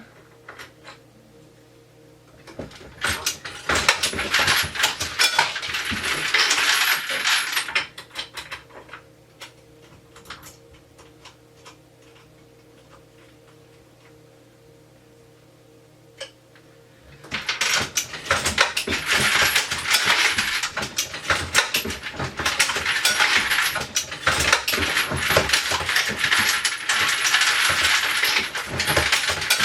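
Brass cases and bullets clattering and clinking in the motor-driven feeders of a Dillon XL650 progressive reloading press. There is a spell of dense rattling from a few seconds in that lasts about five seconds, then a quieter stretch with a low steady hum, then continuous rattling from about seventeen seconds on.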